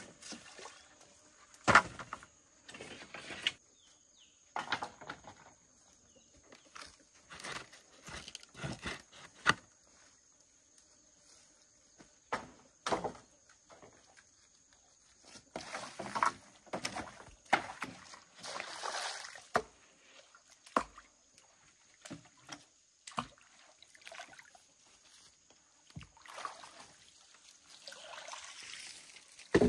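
Irregular knocks and rustling, with water sloshing in a shallow muddy pond in the second half.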